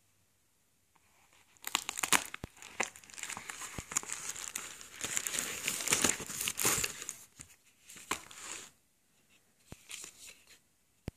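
Plastic crinkling and rustling as a metallic foil bubble mailer is opened by hand and its contents pulled out. The crinkling runs dense with sharp crackles from about two seconds in until nearly nine seconds, then thins to a few light clicks and one sharp click at the end.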